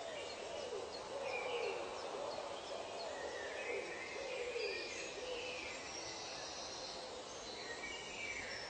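Forest ambience of calling animals. Low calls fall in pitch and repeat roughly once a second, with higher chirping bird calls over a steady hiss.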